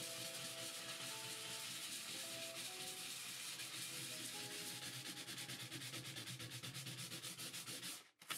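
Sandpaper scrubbed by hand over a bathtub surface in quick back-and-forth strokes, scuffing the finish around a crack so the epoxy can key to it. The sanding stops near the end, and faint background music with held notes runs underneath.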